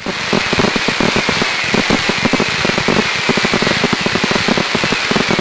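Fireworks going off in a dense, continuous crackle of many small pops, like crackling stars bursting in the air.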